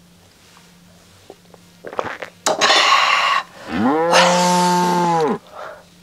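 A woman's breathy, hissing exhale about two and a half seconds in, then a loud, drawn-out wordless cry through cupped hands, its pitch rising and then falling. It is her reaction to a shot of strong soju.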